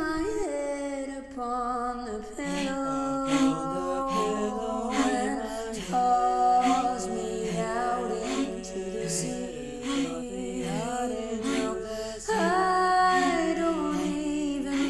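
Wordless a cappella vocal music: several voices hold harmonised notes and slide between them, with short clicks throughout.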